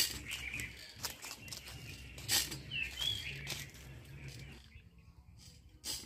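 Hand-operated pesticide sprayer pump being worked, giving a sharp knock with each stroke about every second. Small birds chirp over it.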